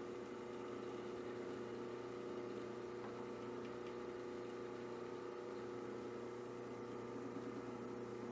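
Drill press running with a steady motor hum while the bit bores through a stack of glued plywood squares.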